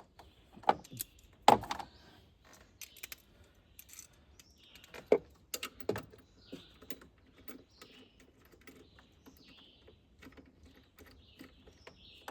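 Irregular metallic clicks and clinks of hand tools working on the alternator's terminal, with a few louder knocks in the first two seconds and again about five to six seconds in. Birds chirp faintly throughout.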